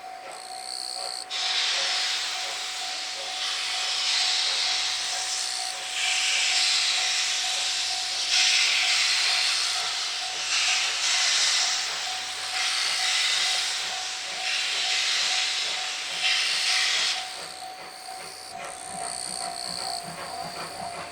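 Steam locomotive C57 180 starting away, venting steam from its cylinder drain cocks in loud hissing surges that come one after another every second or two. The hissing dies down near the end.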